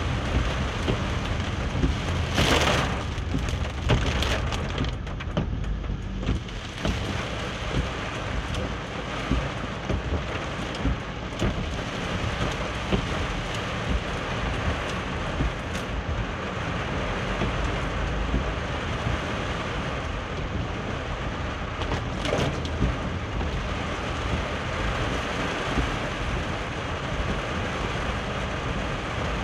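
Heavy rain drumming on a car's roof and windshield, heard from inside the moving car, with a steady deep rumble beneath. A few brief sharp noises break through, the loudest about two and a half seconds in.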